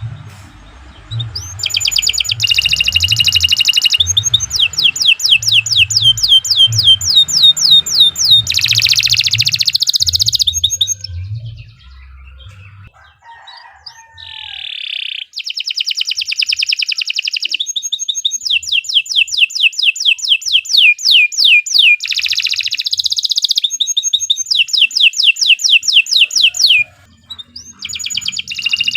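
Domestic canary singing a long song of fast trills and rolled, repeated notes, high-pitched and loud. It sings in two long bouts with a pause of a few seconds near the middle.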